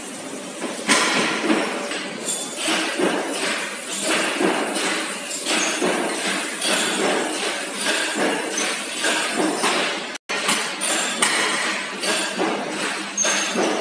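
Metalworking factory noise: a dense, irregular clatter of metal knocks and bangs from machines and metal parts being worked, getting louder about a second in and cutting out for a moment near the end.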